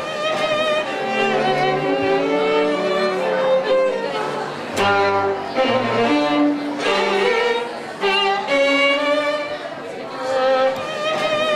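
String quartet playing: violins and cello bowing a slow melody of held notes.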